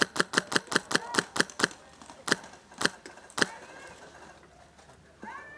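Airsoft rifle firing: a fast string of about nine sharp shots in under two seconds, then three single shots about half a second apart.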